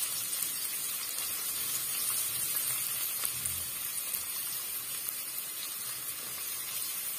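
Chopped onions sizzling in hot oil in a nonstick kadai: a steady frying hiss with small crackles.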